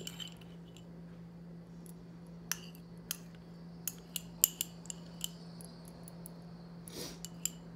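Table knife clicking and scraping against a ceramic ramekin while jelly is scooped out onto bread: a series of small, sharp clinks at irregular intervals, the loudest about halfway through.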